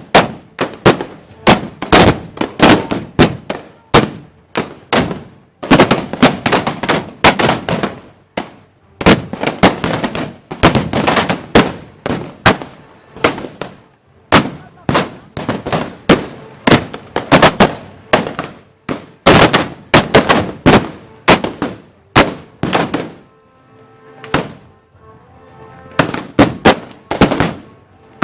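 Black-powder arquebuses firing in quick, irregular succession, loud shots often overlapping one another, with a short lull a few seconds before the end.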